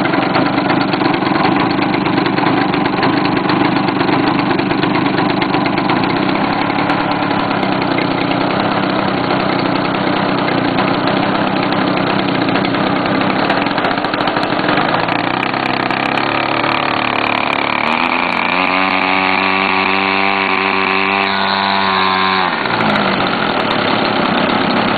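The 50cc two-stroke petrol engine of a large RC Edge 540 aerobatic plane, running on the ground. It runs steadily, is throttled up in steps about 15 seconds in, holds a high rev with a whining note for a few seconds, then drops back to a low run near the end: a ground run-up before the first flight.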